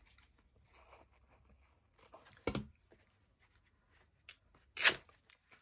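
Fabric scraps and large fabric scissors being handled on a desk: soft rustling, with two short sharp sounds about two and a half seconds apart, the second louder.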